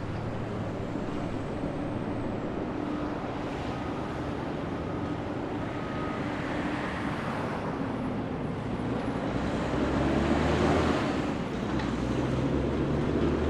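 Diesel engines of two coupled Pacific National NR class locomotives running light, with no train behind them: a steady low mechanical drone that swells louder about ten seconds in.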